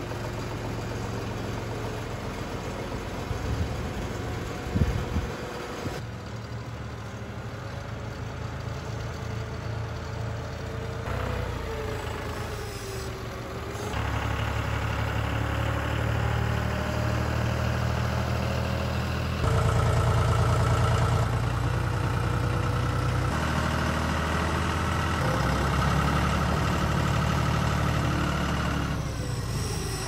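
A John Deere utility tractor's diesel engine running as it lifts and carries a load of lumber on its front loader, with a few clanks about four to five seconds in. The engine note steps louder and quieter several times.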